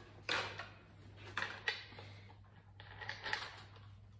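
Clicks, light metallic taps and rustling as an angle grinder's disc is changed by hand. There are a few sharp knocks, the first about a third of a second in and more around one and a half and three seconds in. The grinder is not running.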